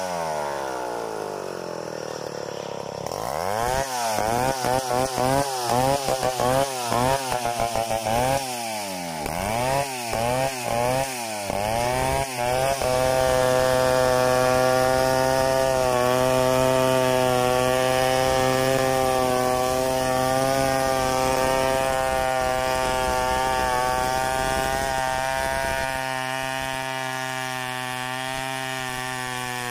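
Stihl 070 two-stroke chainsaw milling a log lengthwise. Its engine speed drops away at the start, then revs up and down in quick repeated bursts for about ten seconds, then holds a high, steady speed as the chain rips along the log.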